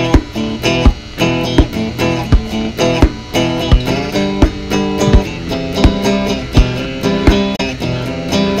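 Instrumental passage of a rock song: electric guitar strumming chords over a steady beat, a little under one and a half beats a second.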